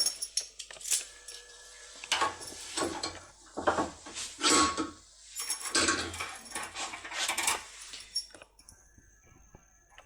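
Small metal objects clinking and rattling as they are handled, with a series of sharp knocks, some leaving a short metallic ring. The clatter dies away near the end.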